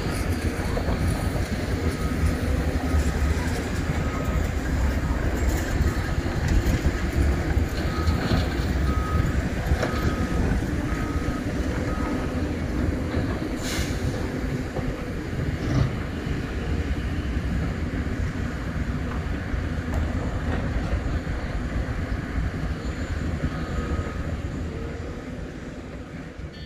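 Diesel engines of Hitachi Zaxis 470H hydraulic excavators and dump trucks running in a steady low rumble while they load. A high beeping alarm repeats for stretches, and there are two sharp knocks about halfway through.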